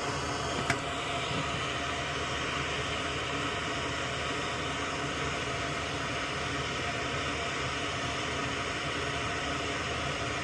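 Steady hiss with a low hum, and one sharp click just under a second in.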